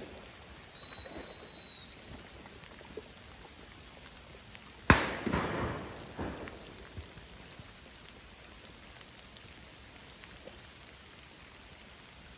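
Steady rain pattering, with a single shotgun shot about five seconds in whose report rolls away over about a second, followed by a fainter second bang just over a second later.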